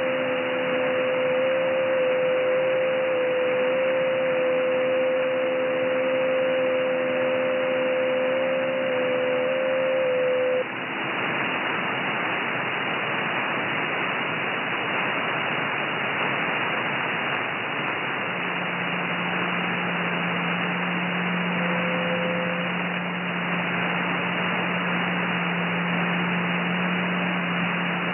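Shortwave receiver audio in upper sideband on the 30 m amateur band: steady hiss of band noise with faint, narrow JT9 digital-mode tones. The strongest tone, near 500 Hz, steps slightly in pitch, and the tones stop about ten seconds in as the transmissions end. A low steady tone comes in later.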